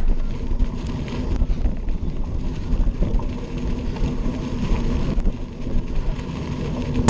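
Wind buffeting the microphone, with an uneven low rumble and no music.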